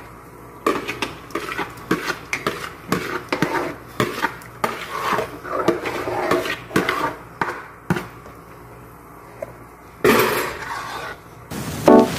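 A metal spoon knocking and scraping against an aluminium frying pan while stirring a thick, wet bread mixture, with many separate clinks. About ten seconds in there is a short hiss, and keyboard music comes in just before the end.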